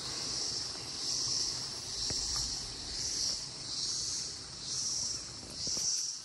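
Insects trilling in a high, pulsing chorus that swells and fades about once a second.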